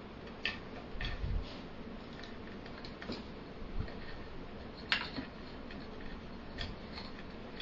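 Scattered light clicks and taps of spinning-wheel parts being handled and fitted together while the footman is reattached to the treadles, with a few soft knocks about a second in and a sharper click about five seconds in.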